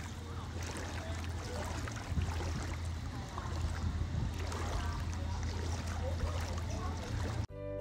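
Pool water trickling and lapping over a steady low hum. Music cuts in near the end.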